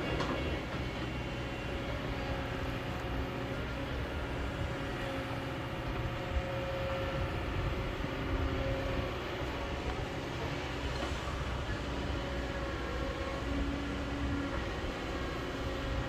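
Kobelco crawler excavator running steadily under load as it digs and swings, its engine drone overlaid with whining tones that come and go as the hydraulics work. A few brief knocks stand out, near the start and in the middle.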